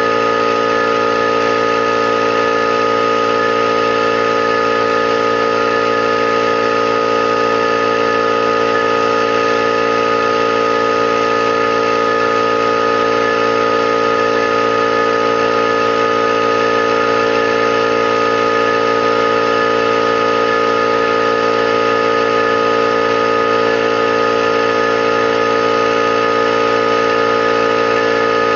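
21-gallon air compressor running steadily at an even pitch, with no change in speed throughout.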